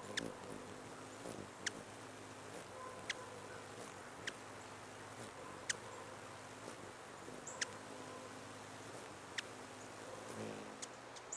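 Hummingbird giving sharp, high, very short chips, one every second or two, with a brief low hum of its wings near the start and again near the end.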